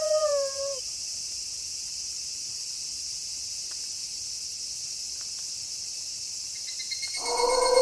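Steady night chorus of crickets, a continuous high shrill. A wolf howl ends with a downward slide in the first second, and another wolf howl begins near the end.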